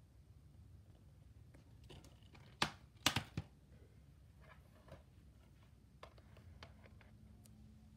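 Plastic DVD cases being handled: a quick cluster of sharp plastic clicks and snaps a few seconds in, then a few lighter taps and rustles as another case is picked up.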